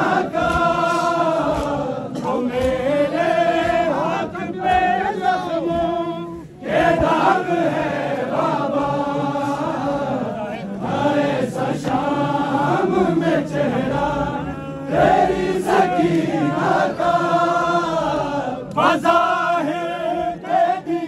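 A large crowd of men chanting a noha, a Shia lament, in unison, in long drawn-out sung phrases with short breaks between them, about six and a half, fifteen and nineteen seconds in.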